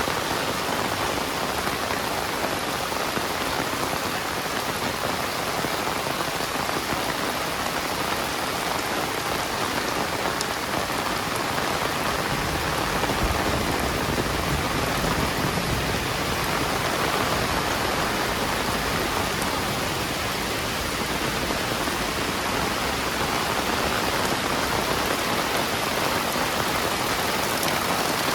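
Heavy rain falling steadily, a dense hiss of drops hitting the ground and surfaces close around.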